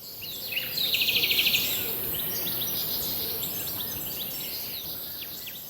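Several small birds chirping and singing over a steady background hiss, with a fast trill about a second in; the sound fades in at the start and fades out near the end.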